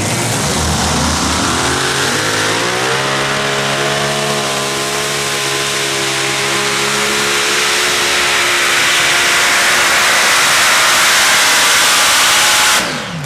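A competition pulling tractor's engine climbing in revs over the first few seconds, then running flat out at a steady high pitch with a loud hiss. It cuts off suddenly near the end.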